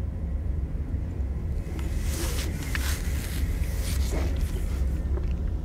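Steady low rumbling drone from a horror short film's soundtrack, with a few faint hissing rustles about two to three seconds in.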